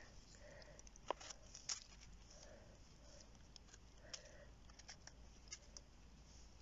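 Near silence, with faint scattered ticks and scrapes from a folding knife cleaning soil off a Caesar's mushroom stem.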